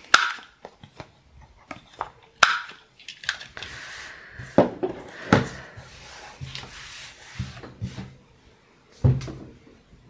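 Handheld corner rounder punch clunking sharply as paper corners are punched, twice in the first few seconds, followed by paper rustling and light knocks as the cards are handled and set down on the desk.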